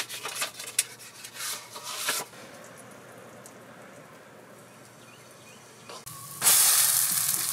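Light clicks and rustling from handling a carton, then a low steady hiss. Near the end, pancake batter meets a hot pan and starts sizzling loudly.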